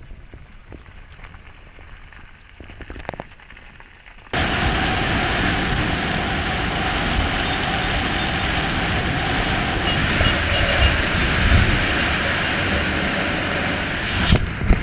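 A few handling knocks in a quiet car cabin. About four seconds in, a sudden switch to loud, steady wind rush and road noise from a car driving at speed, heard by a camera mounted outside on the car's hood, with the wind buffeting the microphone.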